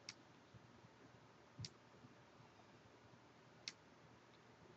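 Near silence with three faint computer mouse clicks, about two seconds apart, as a ticket in a list is dragged and dropped.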